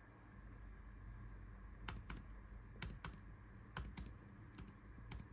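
Keys on a MacBook Air M2's keyboard pressed a few times, sharp clicks mostly in quick pairs about once a second, starting about two seconds in: an attempt to wake the shut-down laptop.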